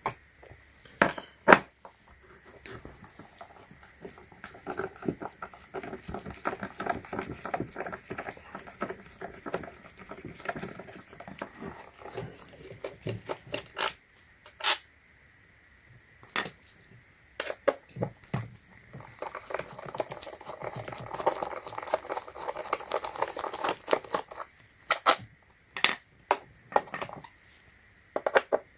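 Plastic case of a battery charger being worked open with a hand tool: sharp clicks and knocks, with two longer stretches of scraping and rattling.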